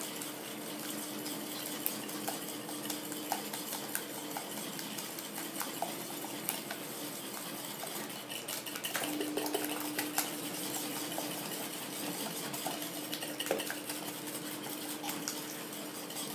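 Wire whisk beating eggs and sugar in a glass bowl: a continuous run of quick, irregular clicks and scrapes of the wires against the glass as the mixture is whipped pale.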